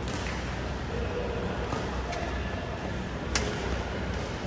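Badminton rally: rackets striking the shuttlecock, a few light hits and then one sharp, loud hit about three seconds in, over a steady low hum.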